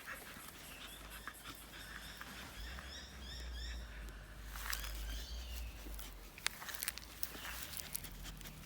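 Faint outdoor ambience: a run of short high chirps repeated for a few seconds, over a steady low rumble, with a few brief rustles or clicks after.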